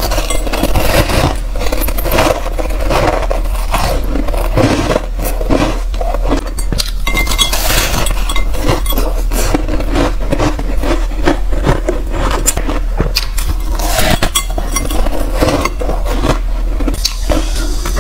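Frosty white ice being bitten and chewed close to a lapel microphone: a dense, irregular run of loud crunches and crackles.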